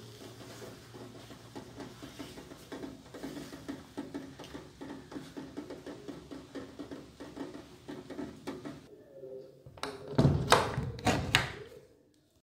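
A cluster of loud wooden knocks and thuds, a wooden door or window being handled and pushed open, about ten seconds in. Before them there is only a faint, steady background.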